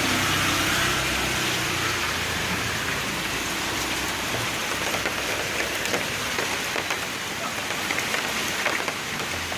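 Heavy rain falling steadily, an even hiss with scattered drops ticking.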